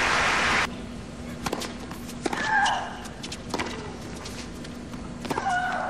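Crowd applause that cuts off about half a second in, then a tennis rally on a hard court: sharp racket hits and ball bounces, with a player's grunt twice, about three seconds apart.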